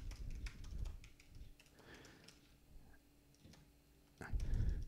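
Computer keyboard keys clicking in scattered, irregular taps, faint and close to the microphone. A brief low thump comes near the end.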